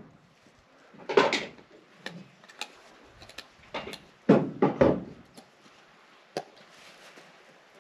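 Wooden knocks, bumps and clatter from a freshly hung wooden coop door being handled and swung in its frame. The sounds come in several short clusters, the loudest just past halfway, with a single sharp click later on.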